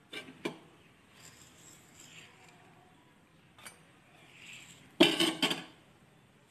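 Steel kitchenware clinking and clattering: two light clinks at the start, a single clink a little past halfway, and a louder flurry of clatter about five seconds in.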